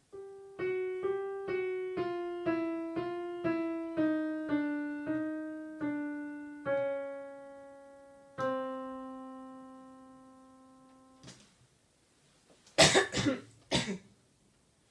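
Digital piano playing a slow, falling line of single notes, about two a second, ending on two longer held notes that stop abruptly. Then a person coughs a few times near the end, louder than the piano.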